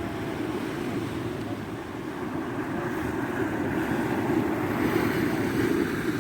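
Steady wind rumbling on the microphone over the wash of surf on a rocky shore.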